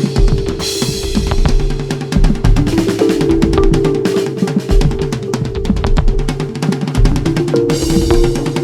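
Music with a driving drum-kit beat: bass drum and snare under sustained pitched notes that change every few seconds.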